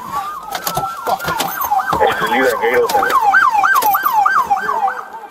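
Police car siren going from a slow wail into a fast yelp, about three sweeps a second, with a few sharp knocks over it.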